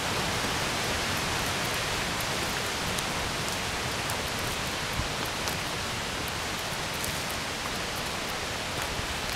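Steady rushing of a creek, an even hiss that eases slightly toward the end, with a few faint ticks on top.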